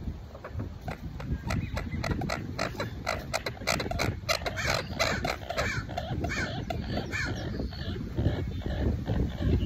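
A quick run of harsh, repeated bird calls over steady wind buffeting the microphone.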